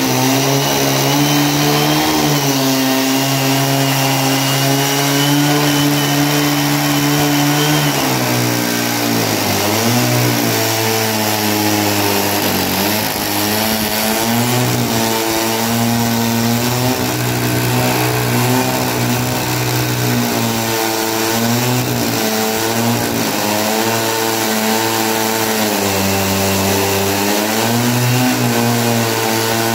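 Two-stroke chainsaw running at high revs while cutting a pine log, its engine pitch sagging and recovering a few times under the load of the cut.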